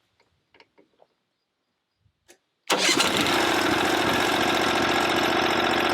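A few faint clicks, then about two and a half seconds in the Norwood sawmill's gas engine comes in loud and runs steadily.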